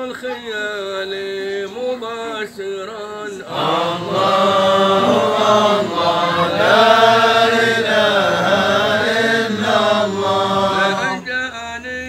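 Men's voices chanting Sufi dhikr in unison. A thinner line of voice leads at first; about three and a half seconds in, the chant swells louder and fuller, and it drops back softer near the end.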